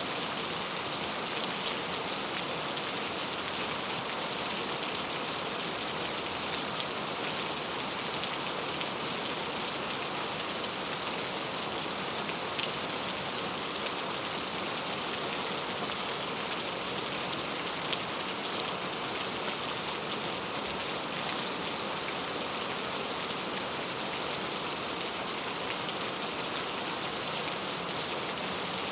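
Heavy rain falling steadily, a dense even hiss with scattered drops striking a surface.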